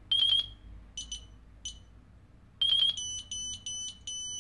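Electronic beeping while the transmitter and quadcopter bind: quick trills of high beeps near the start and about two and a half seconds in, a few single beeps between, then an even run of beeps about three a second.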